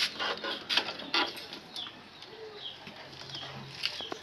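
Clear plastic bottles being handled and slotted into a wooden rack, giving a series of crinkles and clacks, most of them in the first two seconds and again near the end. A bird chirps repeatedly in the background, short high notes about twice a second.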